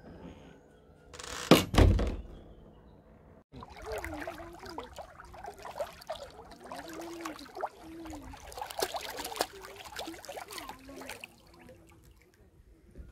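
A loud thump about a second and a half in. After a cut, water laps and splashes in the shallows of a lake, with scattered clicks.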